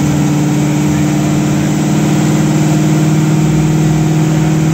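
Car engine running steadily on a chassis dyno, with no rise in revs. It is on a botched tune that the owner says runs a very rich 10:1 air-fuel ratio.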